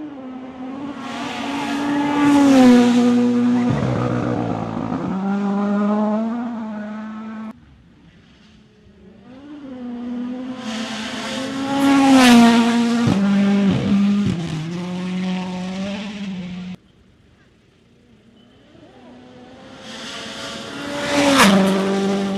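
Three rally cars in turn going flat out through a fast gravel corner: each engine note builds as the car approaches, peaks with a hiss of sliding tyres and thrown gravel as it passes closest, then falls in pitch as it goes away. The first two passes cut off suddenly.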